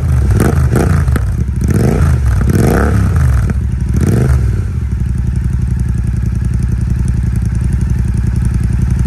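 Royal Enfield Super Meteor 650's parallel-twin engine and exhaust, revved in several quick throttle blips for the first half, then idling steadily.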